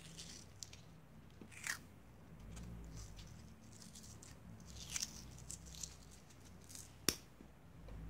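Adhesive tape being pulled off its roll and pressed around a wooden craft stick: a few short crackling rips and rustles of the tape, with a sharp click about seven seconds in.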